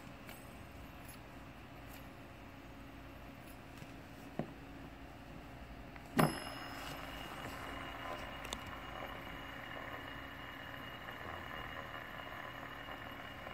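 Matt black Medieval FS-8 metal fidget spinner: a light click about four seconds in as it is handled, then a sharp clack just after six seconds as it is set onto the wooden tabletop, after which it spins on the table with a steady whir.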